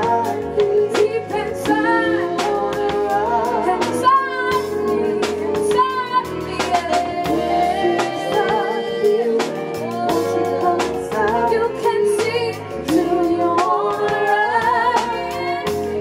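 A woman singing lead with vibrato, backed by a live band with a drum kit keeping a steady beat under a bass line.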